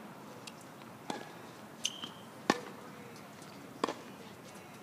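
Tennis ball being hit back and forth, four sharp knocks of the ball off rackets and the hard court, the loudest about halfway through.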